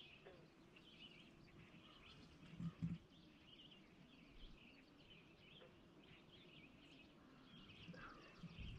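Faint bird chirping and song over quiet open-air ambience, with two dull thumps close together just under three seconds in.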